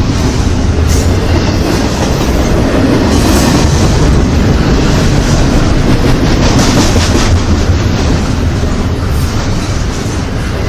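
Intermodal freight train cars rolling past: a steady, loud rumble of steel wheels on rail with clattering over the joints.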